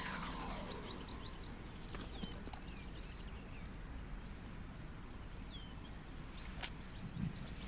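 Faint outdoor ambience with birds chirping now and then. In the first second a falling whoosh fades out, and a couple of soft clicks come near the end.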